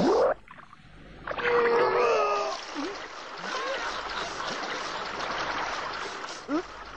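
Water gushing and splashing out of a wooden barrel pierced with a knife, a steady spraying from about three seconds in. A short sharp sound comes right at the start, and a wavering pitched cry about a second and a half in.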